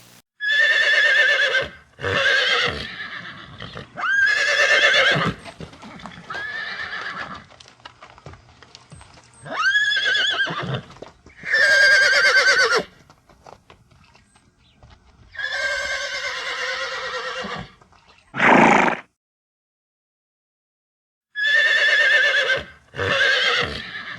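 Horse whinnies, about ten in a row, each lasting a second or so and many falling in pitch with a quavering shake. The sound breaks off completely for about two seconds near the end, then two more whinnies follow.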